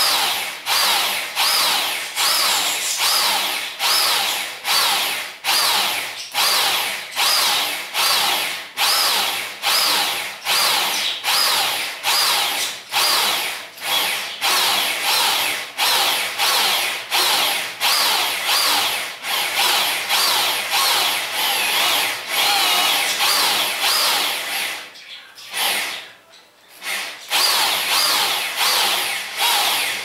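Corded electric drill boring into a wooden board, its motor run in short repeated bursts, about three every two seconds, each whine rising and falling as it spins up and slows. The drilling pauses briefly near the end, then starts again.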